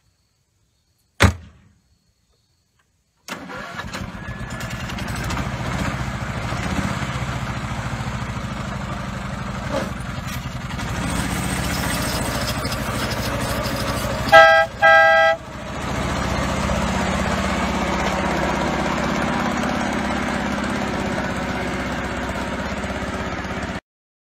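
A single sharp knock, then a mini semi truck's engine starts up and runs steadily, with two short horn honks about halfway through; the engine sound cuts off suddenly near the end.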